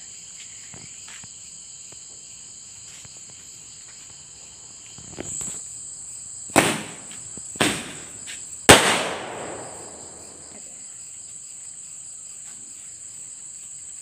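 Aerial Diwali firework going off: a whoosh at launch about five seconds in, then three sharp bangs about a second apart, the last the loudest and trailing off. Crickets chirr steadily throughout.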